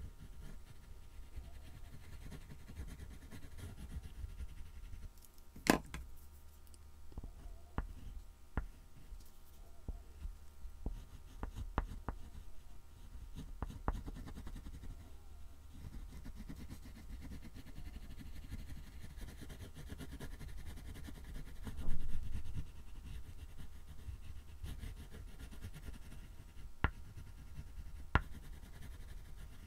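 Soft oil pastel scrubbing across a black-painted MDF board as a large area is coloured in, a rough, uneven rubbing that swells briefly about two-thirds of the way through. A few sharp clicks break in, the loudest about six seconds in.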